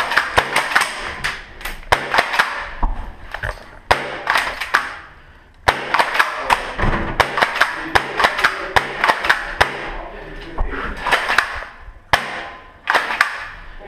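Airsoft gunfire: many sharp cracks and knocks at irregular intervals, some in quick strings, echoing in a small room.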